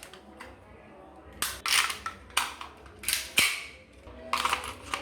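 Airsoft guns firing single semi-automatic shots, about half a dozen sharp cracks spaced irregularly, with a few fainter clicks between them.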